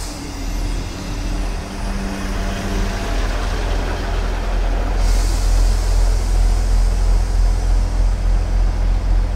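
ScotRail Class 158 diesel multiple unit arriving and passing close by, its underfloor diesel engines and running gear giving a deep, steady rumble that grows louder. About five seconds in, a hiss sets in and carries on.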